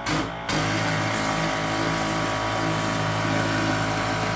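Ryobi 18-volt cordless chemical sprayer spraying water: a short burst at the start, then from about half a second in a steady hiss of spray over the even hum of its electric pump motor.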